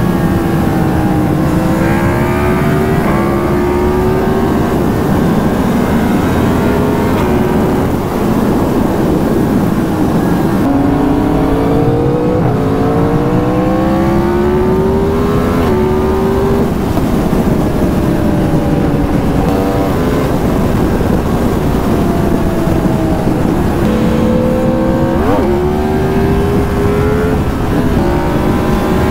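Motorcycle engine heard from the rider's seat, pulling through the gears: its pitch climbs for several seconds at a time and drops back at each upshift. Heavy wind rush on the microphone runs underneath.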